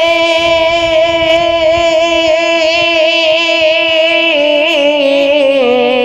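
A male reciter singing an Urdu naat, drawing out one long sung note with a wavering vibrato; the pitch steps down about four seconds in and again near the end.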